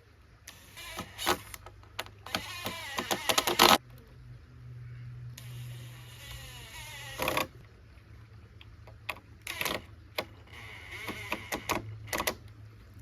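Cordless power drill run in several short bursts, with sharp clicks and knocks of handling between and during the runs.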